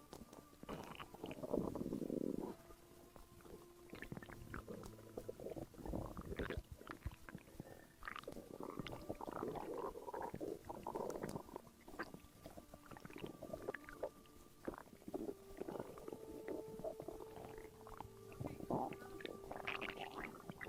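Stomach gurgling and rumbling: irregular runs of bubbly gurgles with short squeaky drawn-out tones, loudest about two seconds in.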